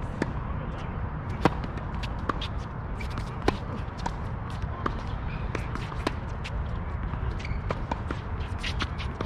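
Tennis balls being hit and bouncing on the court, a scatter of sharp irregular knocks with the loudest about one and a half and three and a half seconds in, among shuffling footsteps, over a steady low rumble.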